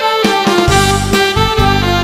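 Instrumental break of a song between sung verses: a melody of held notes over accompaniment, with the low bass notes dropping out at the start and coming back about two-thirds of a second in.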